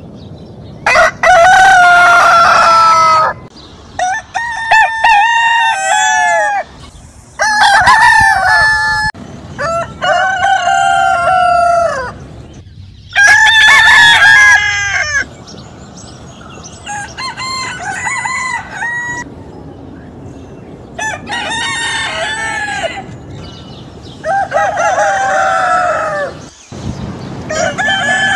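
Roosters crowing one after another, about ten long crows of a couple of seconds each, from several different birds. Some crows are loud and some, around the middle, are fainter.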